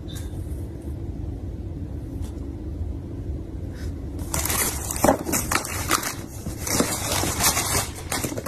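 Low steady room hum for about four seconds, then packaging being handled: a dense run of crinkling, rustling and crackling with sharp clicks through to the end.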